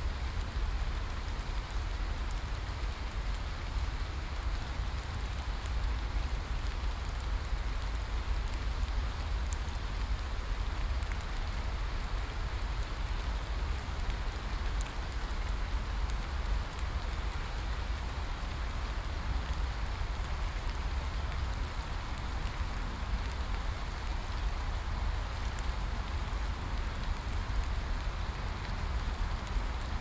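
Steady heavy rain falling on forest foliage: an even, unbroken hiss over a low rumble, with scattered sharp drop ticks.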